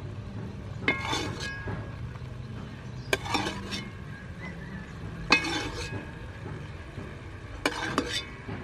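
A metal ladle scooping liquid from a steaming aluminium pot into a ceramic bowl, clinking against the pot and bowl about every two seconds, each clink ringing briefly, over a steady low hum.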